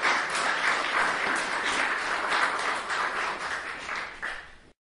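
Audience applauding, with many hands clapping in a dense patter. It thins out a little near the end and then cuts off suddenly.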